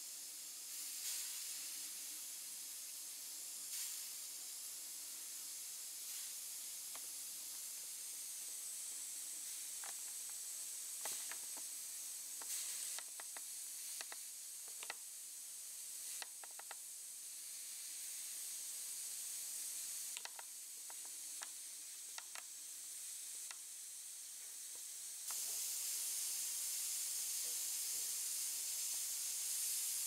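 Aluminium stovetop moka pot brewing on an electric hob: a steady hiss of steam with scattered pops and crackles as coffee is forced up the spout. About 25 seconds in, the hiss steps up louder as the coffee turns frothy, the sign of the pot nearing the end of its brew.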